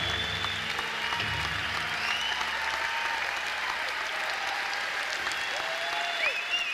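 Concert audience applauding, with shrill whistles gliding up and down that grow louder near the end. A low held tone from the stage fades out in the first second and a half.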